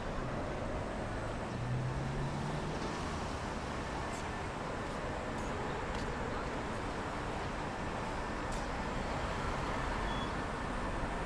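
City street ambience: steady road traffic noise with a vehicle engine humming early on, and indistinct voices of passers-by.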